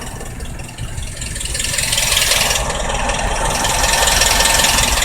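Diesel car engine running on the move, with a rattle that an oil change was said to have fixed but that is still there. The road and engine noise grows louder about a second and a half in.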